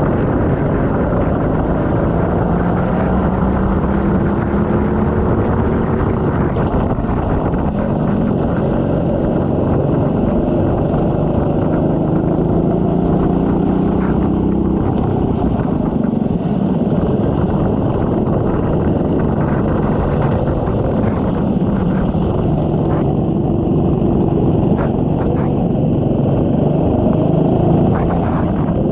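Racing kart engine heard onboard at race pace, its pitch climbing along the straights and dropping back for the corners several times, over a steady hiss of spray and road noise from the soaked track.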